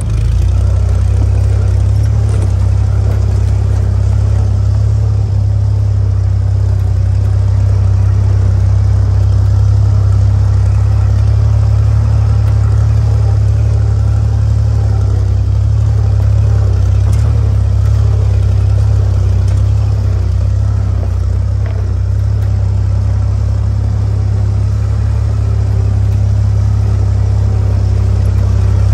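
1944 Willys MB jeep's four-cylinder Go Devil flathead engine running steadily with a low drone as the jeep drives along a rocky dirt trail.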